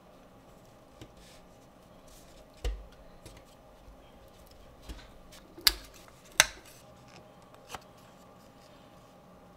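Thin wooden model-kit pieces clicking and knocking as they are pressed into their slots by hand: about five sharp clicks, the two loudest close together a little past halfway.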